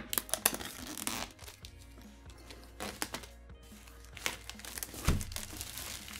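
Clear plastic shrink-wrap crinkling and tearing in irregular crackles as hands pull it off a cardboard box, over steady background music.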